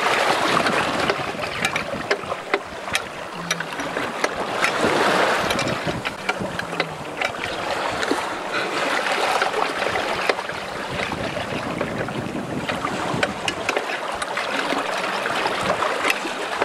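Sea water rushing and splashing past the stern of a sailboat under way, with many small scattered clicks and knocks of metal as the bolts of the wind-vane steering gear are worked by hand.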